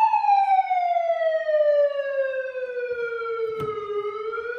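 Electronic siren sounding through an Ahuja SUH-25M 25-watt horn speaker during its first sound test: one long wailing tone that slides slowly down in pitch for about four seconds, then starts to climb again near the end. A brief click sounds shortly before the pitch turns.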